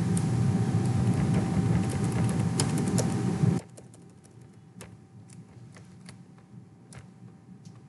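Computer keyboard keys clicking irregularly as text is selected and deleted. For the first three and a half seconds the clicks sit over a loud steady rushing noise with a faint hum. The noise cuts off suddenly, and the clicks carry on more faintly.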